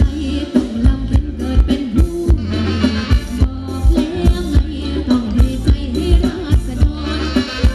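Live band playing Thai ramwong dance music: a steady drum beat of about two hits a second under a sung melody.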